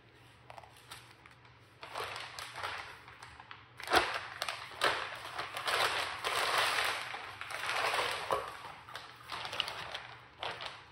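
Plastic wrapping crinkling and rustling as a rifle is pulled from it and out of a cardboard box, with a sharp knock about four seconds in.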